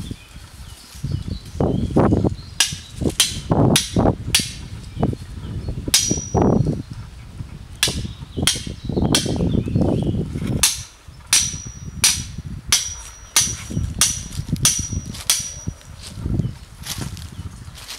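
Hammer blows on a steel angle stake being driven into the ground: a series of sharp metallic strikes, about one to two a second, many leaving a brief high ring.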